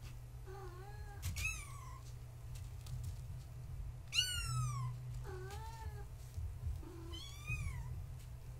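Four-week-old kittens mewing: about six calls, some high-pitched and falling, others lower and shorter, the loudest about four seconds in. A low steady hum runs underneath.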